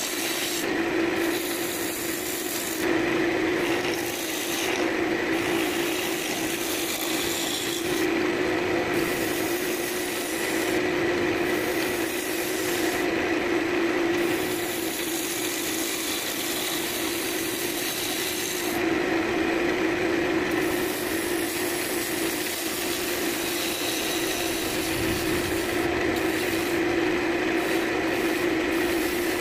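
Wood lathe running with a steady hum while a hand-held turning chisel cuts the spinning cherry-branch blank: a rough scraping hiss of shavings that drops out briefly many times as the tool is lifted and moved between passes.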